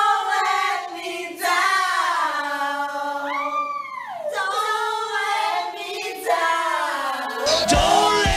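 Several women singing together unaccompanied, holding long notes, with one voice sweeping up and back down about three seconds in. Near the end a rock track with a bass line comes in.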